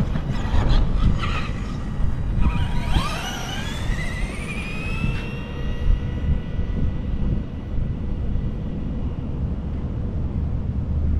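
Traxxas Rustler RC truck's brushed electric motor and drivetrain whining up in pitch as it accelerates on a full-throttle speed pass. The whine levels off, then cuts off suddenly about five seconds in, over a steady low rumble.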